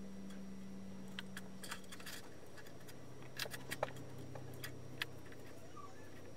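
Faint, scattered small clicks and ticks as fingers handle a thermal fuse's wire lead and a small metal crimp sleeve, most of them about three and a half seconds in, over a steady low hum.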